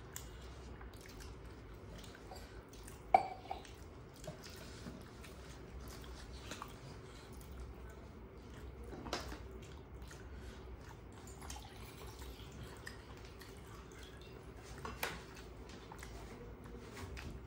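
Quiet close-up eating sounds: fingers squishing and mixing rice with curry on steel plates, and chewing. A few small sharp clicks stand out, the loudest about three seconds in.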